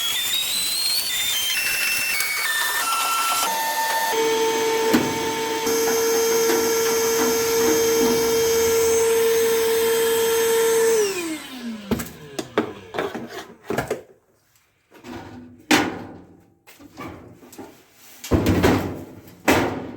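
Small handheld vacuum running with a steady whine, switched off about eleven seconds in and winding down. After that come scattered knocks and clatter.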